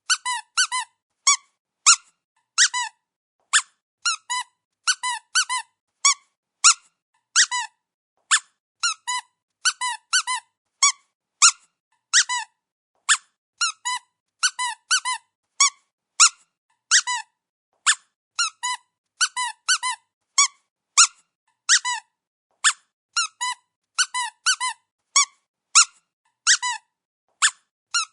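Rubber dog squeaky toy being squeezed over and over: short high squeaks, singly and in quick runs of two to four, with silent gaps between them.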